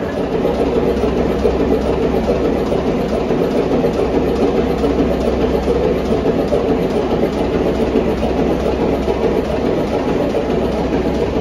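W.H. Allen stationary engine running steadily, belted to a generator: a loud, even, fast mechanical beat over a low hum.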